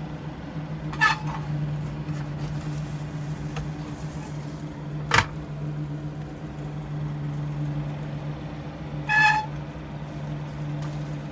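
Steady low hum of a fan running, with a sharp click about five seconds in and two brief higher-pitched sounds, one about a second in and one near the end.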